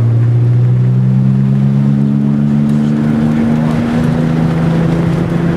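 Porsche 996 Turbo's twin-turbo flat-six pulling hard under acceleration, heard inside the cabin; its pitch climbs slowly, then shifts to a new pitch a little past halfway.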